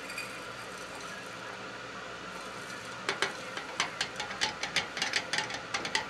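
Coffee grounds being emptied from a blade grinder's cup into a glass French press carafe: after a faint steady background, a run of light, irregular taps and clicks starts about three seconds in, several a second, as the grinder cup and lid knock against the carafe.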